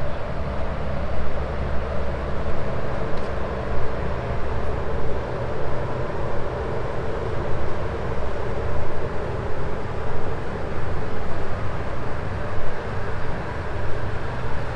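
Steady low engine drone mixed with the general noise of harbourside city traffic.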